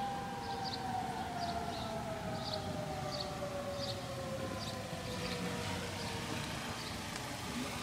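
Federal 2001 tornado siren winding down after being switched off, its tone falling slowly and steadily in pitch.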